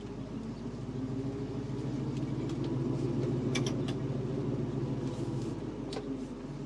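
A 1967 Ford Mustang's 302 V8 running through Flowmaster dual exhausts, heard from inside the cabin while driving, with road noise. It swells over the first few seconds as the car pulls and then eases off slightly, with a few faint clicks.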